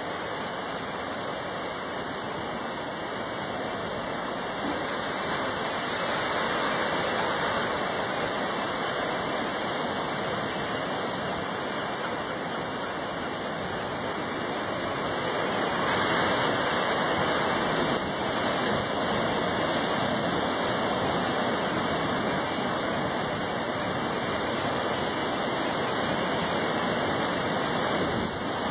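Ocean surf washing against a rocky shore, a steady rush that swells a little about six seconds in and again from about sixteen seconds.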